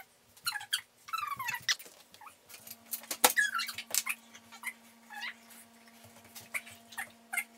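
Rottweiler whining in short, high, wavering squeaks, eager for the ball, with a sharp knock a little over three seconds in.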